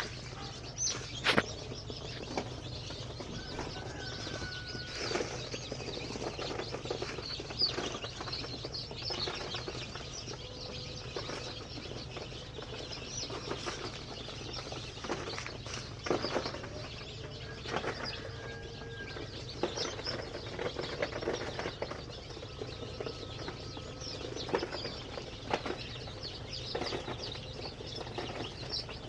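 Local chicken chicks moving about in a pen: scrabbling and wing flapping with occasional short calls, over a steady low hum.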